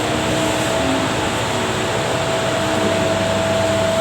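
Steady background noise: an even hiss with one constant mid-pitched hum, the sound of a running machine such as a fan or air conditioner.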